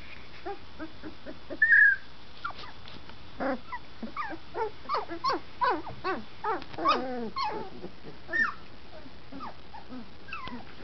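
A litter of 20-day-old puppies whimpering and yipping: many short cries that mostly fall in pitch, thickest from about three to eight seconds in. One louder, higher squeal comes just under two seconds in. These are young puppies just finding their voices, learning to bark.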